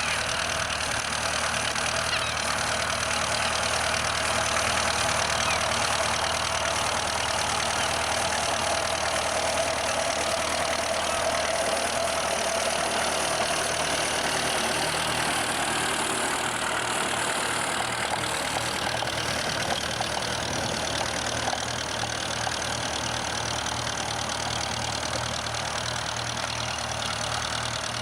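Ferguson TEF tractor's four-cylinder diesel engine running steadily.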